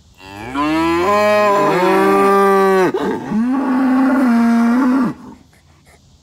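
Cow mooing twice: a long moo of nearly three seconds that swoops up at its start, then a second, steadier moo of about two seconds.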